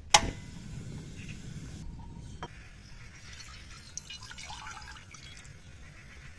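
A sharp knock of an object set down hard just after the start, two lighter clicks, then a soft, uneven trickling of liquid.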